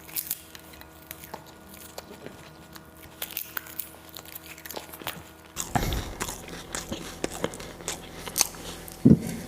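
Close-miked chewing and biting, with scattered crisp clicks and crunches; the mouth sounds grow busier and louder about halfway through, with a heavier bite near the end.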